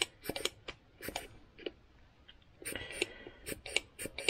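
Small metal parts of a carburettor's automatic choke unit being handled and fitted together by hand: irregular light clicks and taps, with a short stretch of metal scraping and faint ringing about three seconds in.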